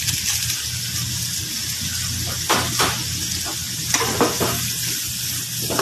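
Shrimp with garlic and green chili frying in a pan, sizzling steadily. A metal utensil scrapes and knocks against the pan a few times a little past halfway as the shrimp are stirred.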